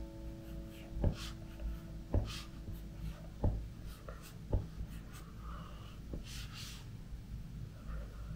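Apple Pencil tip drawing on an iPad's textured screen protector: short scratchy strokes, with four sharp taps about a second apart in the first half.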